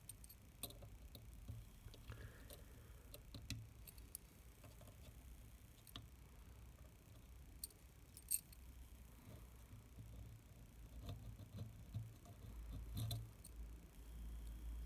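Faint, scattered clicks and light taps of small metal parts: brass gear rings and a screwdriver being handled in the opened front of a Rolleiflex Standard camera, with a sharper click a little past the middle.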